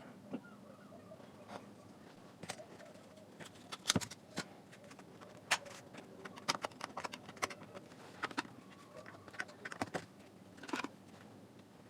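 Irregular sharp clicks and taps of small tools and plastic and metal parts being handled while a Bluetooth speaker is taken apart, several in quick succession around the middle.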